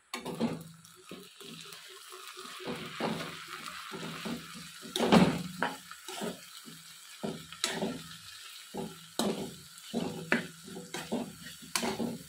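Metal spoon stirring and scraping cooked greens in a nonstick frying pan, knocking irregularly against the pan, with a sizzle from the hot pan underneath. The loudest knock comes about five seconds in.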